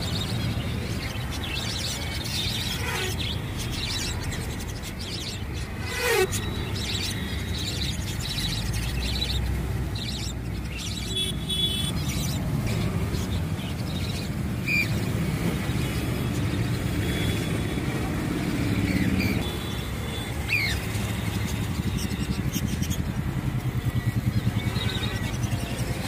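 Cockatiels giving a few scattered chirps and falling whistle calls, the longest about six seconds in, over a steady low background hum.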